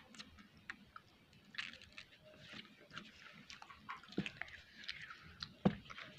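A person chewing noodles close to the microphone: small wet mouth clicks and smacks. A sharp knock comes near the end.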